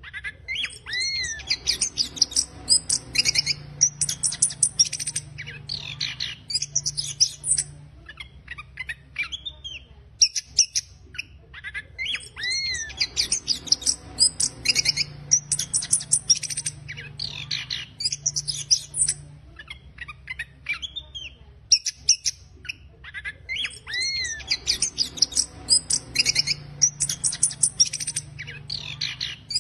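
Chestnut-capped thrush (anis kembang) singing its rough, scratchy 'ngeriwik' twittering song: fast runs of varied high chirps and trills. Each run opens with a rising-and-falling whistled note, and a similar run comes back about every 11 seconds.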